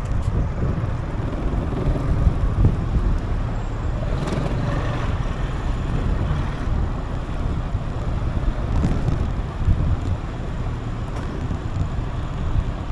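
Riding noise from a Gilera Fuoco three-wheeled scooter on the move: a steady low rush of wind over the microphone with engine and road noise underneath.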